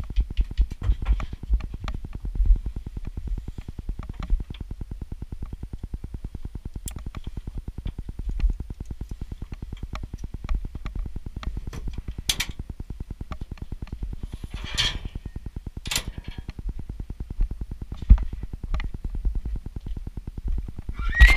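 Horse being loaded into a horse trailer: scattered knocks and thuds from hooves and the trailer over a steady, fast-fluttering low rumble, with a short hissing rustle about fifteen seconds in.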